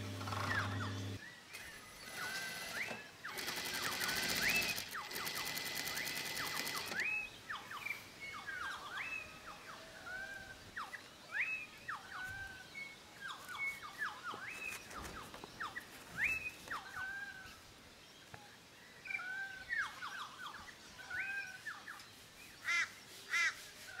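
Birds calling with short, repeated whistled glides throughout. An industrial sewing machine runs briefly near the start, then stitches in a rapid rattle for a few seconds, the loudest part.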